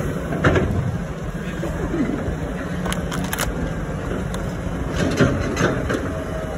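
Dump truck engine running with a steady low rumble, with a few sharp clicks or knocks in the middle and near the end.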